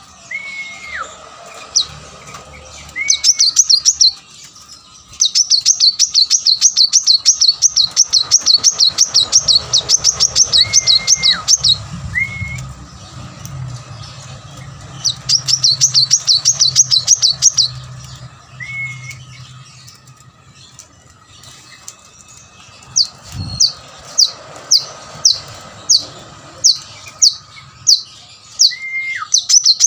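Kolibri manggar sunbird in full song: loud, rapid high-pitched trills in bursts of a few seconds each, then a string of single sharp down-slurred notes about twice a second near the end. A lower whistled note that drops at its end recurs several times between them.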